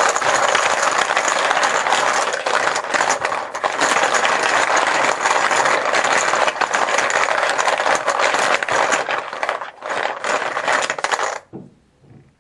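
Team chips being shaken and mixed, a dense continuous clatter of chips knocking together that stops abruptly near the end.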